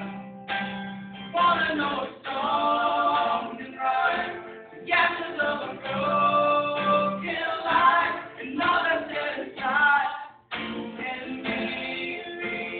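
Two men's voices and a woman's singing a slow song together in harmony, in phrases, over a strummed acoustic guitar, with a brief break about ten and a half seconds in.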